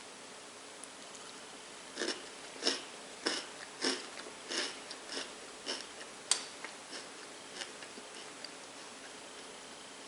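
Someone chewing Reese's Puffs cereal: a run of about a dozen crisp crunches at uneven intervals, starting about two seconds in and thinning out near the end.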